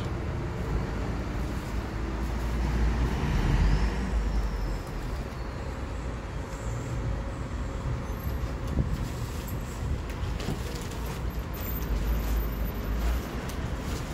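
Steady rumble of road traffic, with wind buffeting the microphone and swelling now and then; a faint falling whistle about four seconds in.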